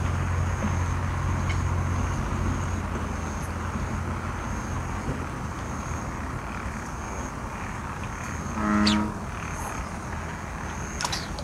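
Outdoor night ambience at a fishing pond: a steady low hum that fades after about five seconds, with a thin high tone coming and going. About nine seconds in there is one short, low animal-like call, and a few light clicks follow near the end.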